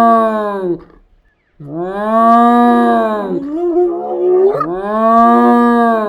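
Long, drawn-out animal calls at a steady pitch: the tail of one call, then a full call, a shorter wavering call that rises, and another long call near the end.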